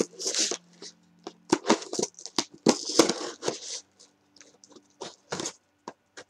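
Scissors slitting the packing tape on a cardboard shipping box: a run of short, irregular scraping and tearing strokes with brief pauses between them.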